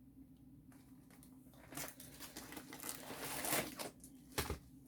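Packaging of a diamond painting kit crinkling and rustling as it is handled, starting about two seconds in, with a sharp click near the end.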